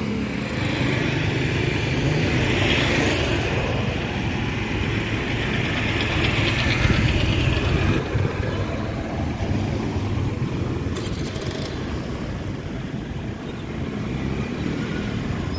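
Motor vehicle engine running steadily, with road and wind noise from travelling.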